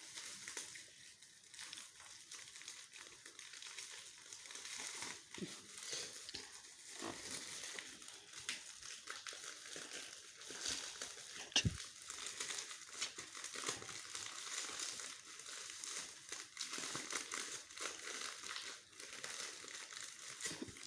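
Gift wrapping crinkling and rustling in irregular handfuls as a present is unwrapped, with one sharp knock about halfway through.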